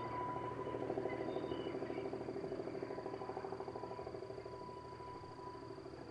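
Brill Model 75 railcar set heard from a distance, its engine running with a steady, rapidly pulsing drone. The drone slowly fades as the railcars move away.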